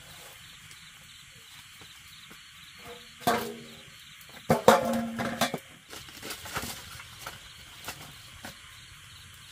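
Wood fire crackling with scattered small pops, over a steady high chirr of night insects. Two louder sounds with a clear pitch come about three seconds in and again about four and a half seconds in.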